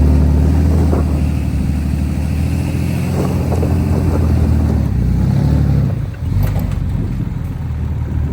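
Kubota tractor's diesel engine running under load, its revs rising and falling as it works, with a brief drop in revs about six seconds in.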